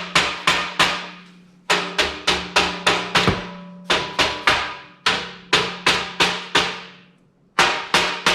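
Hammer blows on a steel welding-table part to seat it, in quick runs of about three blows a second with short pauses between runs; the steel rings after each blow.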